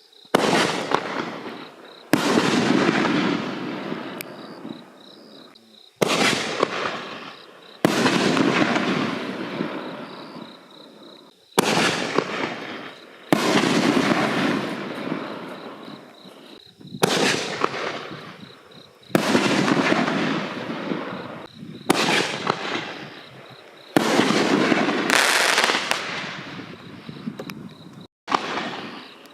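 5-inch canister aerial fireworks shells going off one after another: about a dozen loud booms, one every two to four seconds, each followed by a long fading crackle and rumble.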